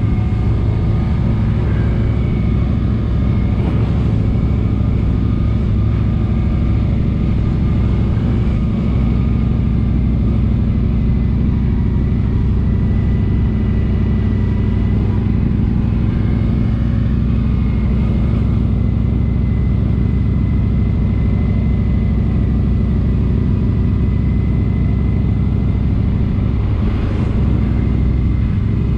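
Motorcycle engine running steadily, its pitch holding even with no revving or gear changes.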